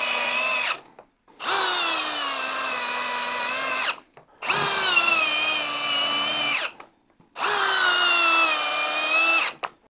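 Ridgid 18V brushless high-torque hammer drill driving 6-inch TimberLok screws into engineered wood: the end of one drive, then three more drives of about two and a half seconds each. The motor's whine drops in pitch as each screw bites and the load builds, and each drive stops abruptly.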